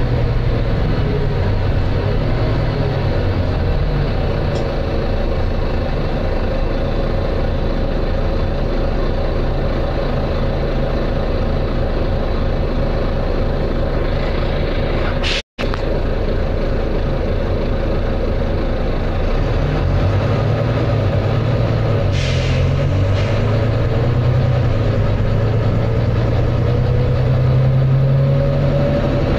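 Heard from inside a Volvo B9TL double-decker bus under way: its six-cylinder diesel engine working hard, with a steady whine from the drivetrain. Two brief hisses of air, and a split-second drop-out about halfway through.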